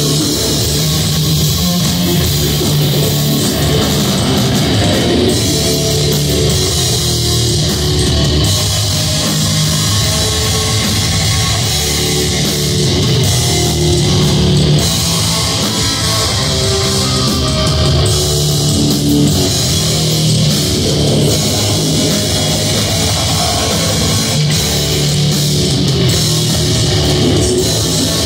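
Heavy metal band playing live: distorted electric guitars over a drum kit, at a steady, loud level without a break.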